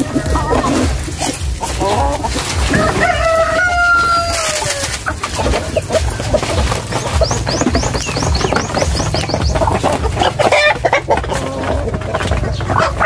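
Backyard chickens clucking, with a rooster crowing once about three seconds in, a long call that falls in pitch at its end.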